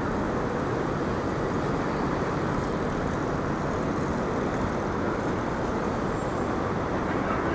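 Steady city street traffic noise, an even wash of passing vehicles with no single event standing out.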